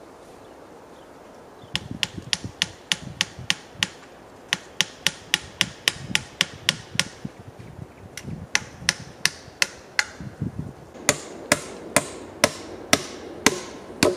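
Hammer blows on wood in quick runs of about three strikes a second, with short pauses between runs; the last run rings a little.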